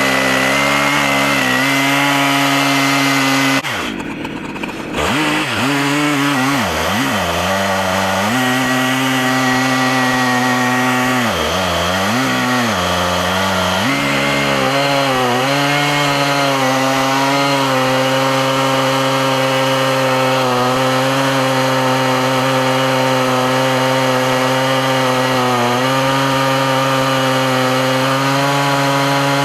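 Stihl MS880 two-stroke chainsaw at full throttle, cutting lengthwise through an oak log on an Alaskan chainsaw mill. The engine pitch dips briefly about four seconds in and wavers a few more times as the cut gets going, then holds steady under load.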